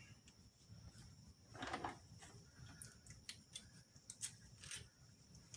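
Faint, scattered clicks and light clinks from the parts of an oily roller rocker arm assembly being handled with gloved hands, with a brief rustle about one and a half seconds in.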